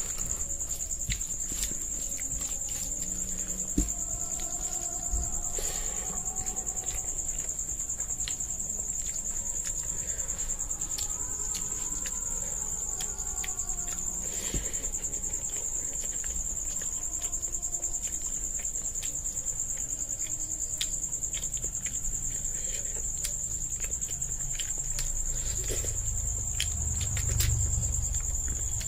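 Crickets trilling steadily in the background, with close eating-by-hand sounds over it: fingers mixing rice and chicken curry on a plate, and chewing, as many small clicks and smacks.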